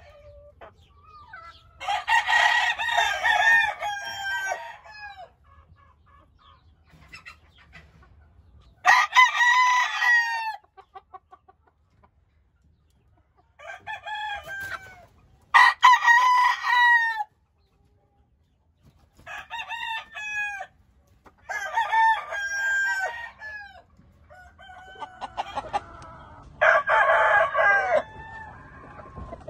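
Gamefowl roosters crowing over and over, about eight crows a second or two long each, with short quiet gaps between them.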